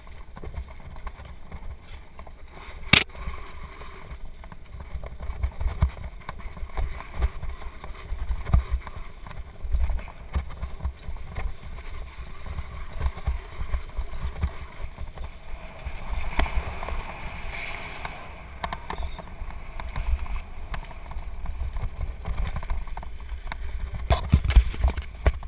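Mountain bike descending a dirt trail at speed: wind rumbling on the microphone over the noise of the tyres on dirt and the bike rattling. Sharp knocks from bumps, a loud one about three seconds in and a cluster near the end.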